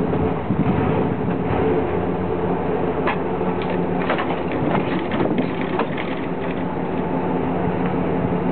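Ford Super Duty truck's engine running steadily as the truck rolls slowly over trenching shovels on asphalt, with a cluster of sharp clicks and cracks about three to six seconds in as the rear wheels roll across the shovel heads and handles.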